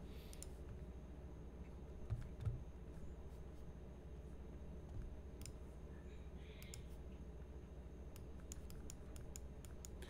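Faint, scattered computer mouse clicks, more of them close together near the end, over a low steady hum. Two soft thumps about two seconds in.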